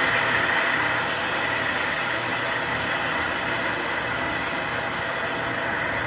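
Small electric desk fan with homemade cut-out blades running steadily: a low motor hum under an even rush of air.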